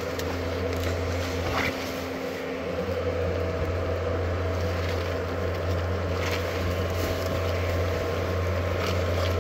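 Steady low buzzing drone of hornets around their broken-open nest, with a couple of faint rustles from the comb being handled.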